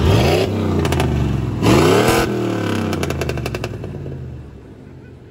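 A pickup truck's engine revving hard twice, the pitch climbing and falling each time, with runs of rapid clicking crackle between the revs. The engine sound then fades away.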